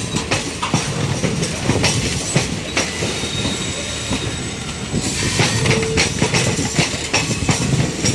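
Passenger train wheels running on the track, clattering over rail joints and points with irregular sharp clicks over a steady rumble. A faint thin squeal rises about three to five seconds in.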